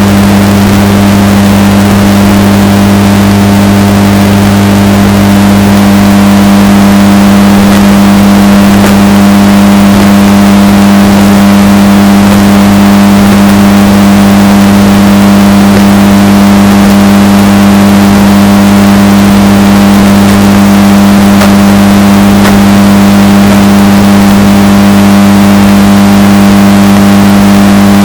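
Washing machine running: a steady, deep hum, heavily bass-boosted and distorted.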